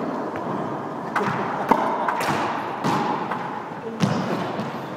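Squash ball play: about five sharp knocks of racket on ball and ball off the walls, the one a little under two seconds in the loudest, each ringing briefly in the enclosed court.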